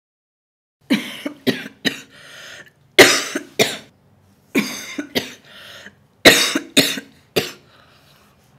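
A young woman in a hard coughing fit: about a dozen sharp coughs in clusters, starting about a second in, with short breaths drawn between them.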